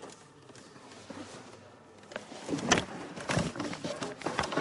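Irregular knocks and clatter of objects being handled and moved, starting about two seconds in after a faint stretch.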